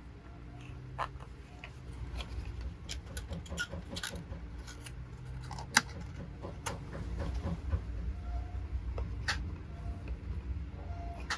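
Scattered light clicks and taps from small parts of a diecast model truck being handled and fitted together, with one sharper tap about halfway through, over a low steady hum.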